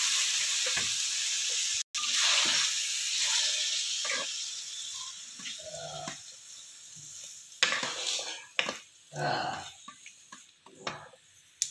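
Hot oil in a kadhai sizzling as steamed raw papaya pieces go into the spices, fading over the first few seconds. Then a wooden spoon stirring and scraping the papaya around the pan, with a few sharper knocks later on.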